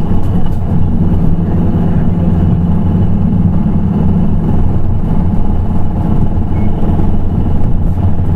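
Nissan Diesel PKG-RA274KAN city bus with its diesel engine running, a steady low drone with little change in pitch.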